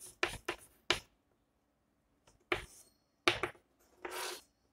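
Chalk writing on a blackboard: several short, sharp chalk taps and strokes, then a longer scratchy stroke near the end.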